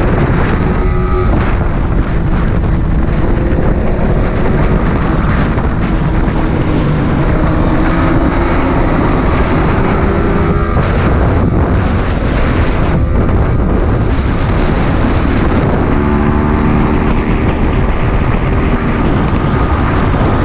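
Yamaha sport motorcycle's engine running at speed under heavy wind noise on the microphone. The engine note climbs slowly, breaks off about ten seconds in, and drops to a lower note about sixteen seconds in, as with gear changes.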